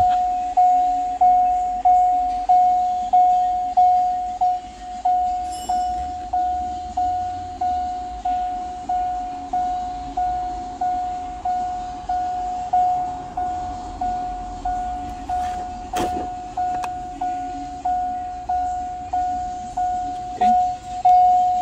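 Pickup truck's cabin warning chime dinging over and over at one pitch, about one and a half dings a second, each ding fading quickly, as from the 2016 Chevrolet Silverado's door-open or key reminder chime.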